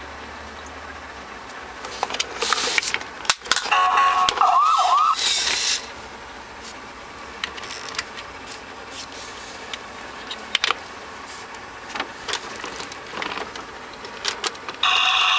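Matchbox Smoky talking fire truck toy playing electronic sound effects from its small speaker: a couple of seconds in, a burst of noisy effects with a short warbling siren. Plastic clicks follow as its buttons and parts are handled, and another electronic sound from the toy starts near the end.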